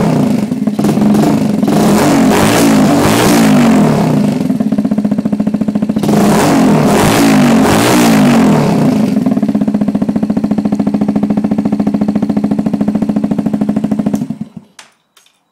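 Megelli 125 motard's single-cylinder engine blipped in a series of quick revs, settling to a steady idle, then a second series of revs and idle, before being switched off near the end; a few faint clicks follow.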